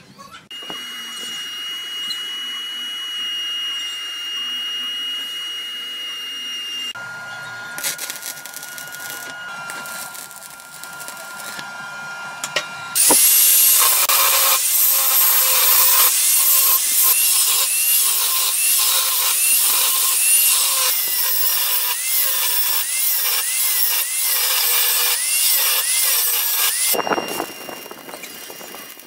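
Power tools running with a steady whine, then an angle grinder bevelling the edge of a steel plate. The grinder is loud, and its pitch repeatedly dips and recovers as it is pressed into the cut. Near the end comes the crackle of stick arc welding.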